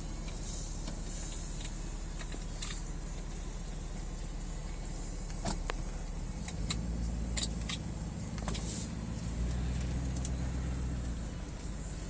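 Steady low rumble of motor vehicles, swelling about halfway through and again near the end, with a few sharp clicks in the middle.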